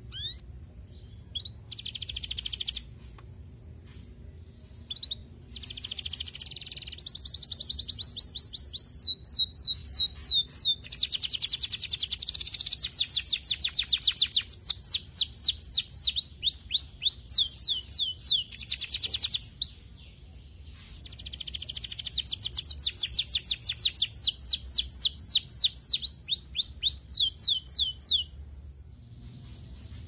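Domestic canary singing: a few short high notes, then two long rolling trills of fast, repeated downward-sliding notes, with a brief pause between them just under twenty seconds in.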